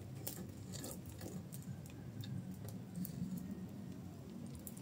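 Firewood burning strongly in a clay stove, crackling with irregular sharp snaps over a low steady hum.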